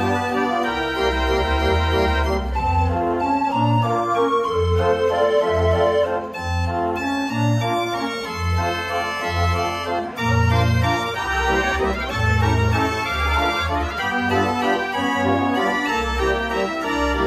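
Dutch street organ De Brandweer (G. Perlee, Amsterdam) playing a tune: a pipe melody over deep bass notes on a steady beat.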